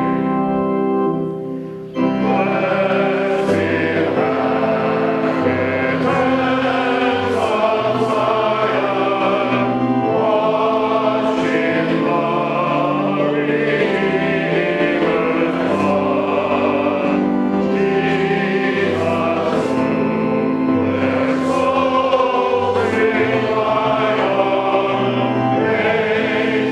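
A choir singing in church music, coming in about two seconds in after a brief dip, over steady held low notes.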